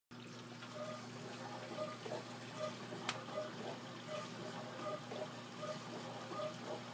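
Dishwasher running its wash cycle: water spraying inside the tub over a steady motor hum, with a short swishing tone repeating a little faster than once a second. One sharp click about three seconds in.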